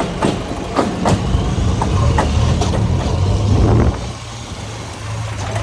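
Heavy diesel earth-moving machinery at work: a diesel engine runs harder for a few seconds, then eases about four seconds in, with several sharp knocks during the first three seconds.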